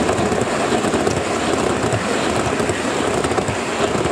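Gauge 1 model train's coaches rolling past close by, a steady clatter of metal wheels on the track.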